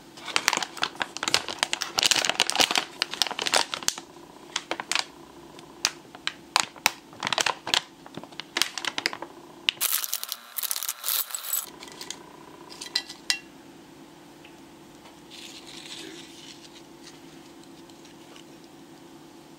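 Foil-lined potato chip bag crinkling and crackling as it is handled and opened. About ten seconds in comes a short dense rush as the chips pour out onto a plate, then only a few last crackles.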